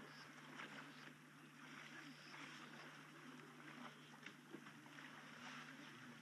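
Faint splashing and sloshing of water as African elephants wade and wallow in a muddy waterhole, with small irregular splashes, over a steady low electrical hum.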